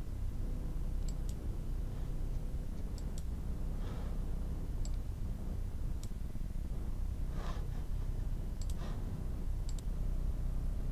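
Computer mouse clicking about ten times, mostly in quick pairs, over a steady low hum.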